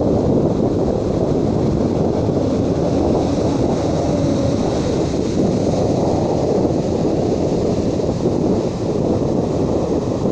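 Sea breeze buffeting the microphone over waves breaking on a beach: a steady, mostly low-pitched noise with no pause.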